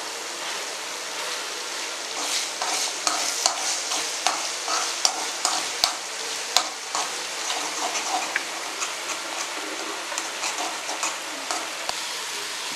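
Eggs and chopped onion sizzling in a hot metal pan, with a steel spoon scraping and clicking against the pan as the eggs are stirred and scrambled. The scraping is busiest in the first half, then thins out to occasional strokes.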